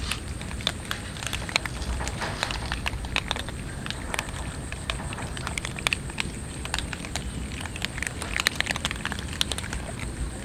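A group of cats crunching dry kibble: a dense, irregular crackle of quick little clicks. A faint steady high-pitched tone runs behind it.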